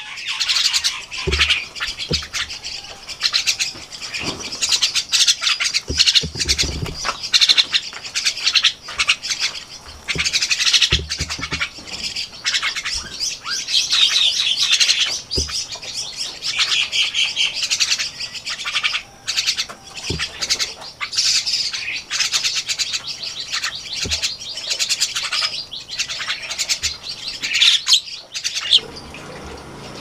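A flock of Javan mynas calling together in a busy mix of chirps and harsh squawks, with occasional low thumps among them; the calling drops away about a second before the end.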